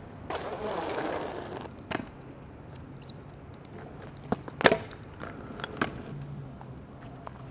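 Stunt scooter wheels rolling on rough asphalt, then sharp clacks of the scooter hitting the road as tricks are landed, the loudest a little before five seconds in, with lighter knocks about two seconds in and near six seconds.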